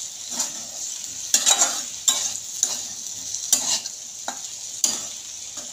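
Okra with tomato and spice masala frying and sizzling in a kadhai, with a steady high hiss, while a spatula stirs it, scraping and knocking against the pan at irregular moments.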